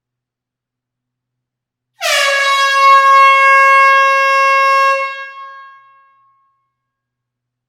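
An air horn sounding one steady blast of about three seconds, a single pitch with many overtones, starting about two seconds in and then dying away in the reverberation of a hall.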